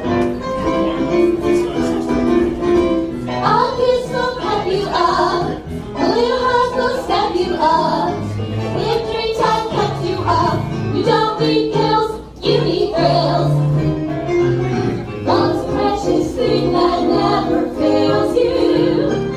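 Music with singing voices joining the instrumental accompaniment about three seconds in.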